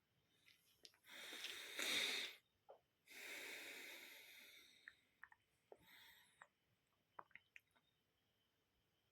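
A person's loud breaths close to the microphone: a rising breath about a second in, then a longer one that fades away, followed by a few faint clicks.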